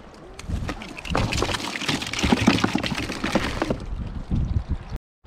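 Water sloshing in a foam cooler of live crabs as it is handled, with a dense patter of clicks and scrapes that is busiest in the middle.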